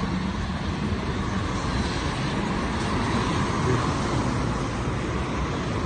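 Steady city road traffic: cars driving past close by on a busy street, a continuous rush of engines and tyres on the road.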